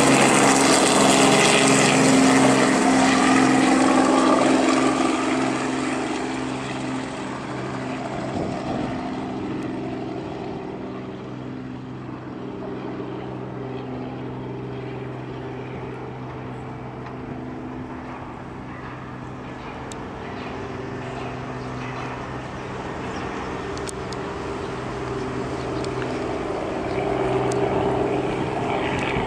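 Robinson R44 piston-engined helicopter flying away after takeoff: the rotor beat and engine are loud at first, then fade to a steady, distant drone as it climbs and moves off. The pitch drops slightly in the first few seconds as it passes.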